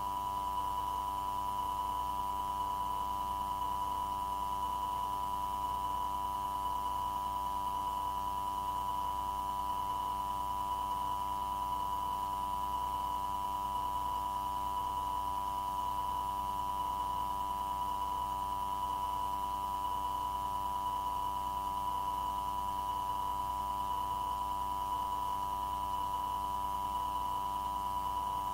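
Steady electronic tone over a low hum, unchanging throughout: the background of an air traffic control tower recording channel with no transmissions on it.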